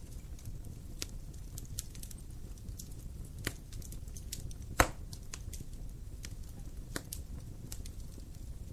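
Wood fire crackling: irregular sharp snaps and pops over a steady low rumble, with one loud pop a little past halfway.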